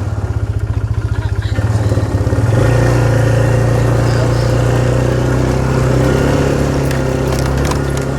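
A vehicle engine running, with an uneven pulsing chug for the first couple of seconds. About two and a half seconds in it picks up and runs steadily and a little louder.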